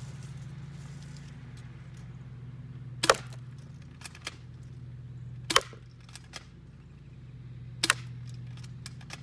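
Airsoft gun fired three times, about two and a half seconds apart. Each shot is a sharp crack closely followed by the BB hitting a plastic flower pot. Fainter clicks fall between the shots.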